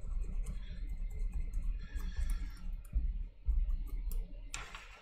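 Small clicks and scratchy rubbing from tools and parts being handled at a repair bench, over low thumps of handling noise. There are two heavier bumps about three seconds in.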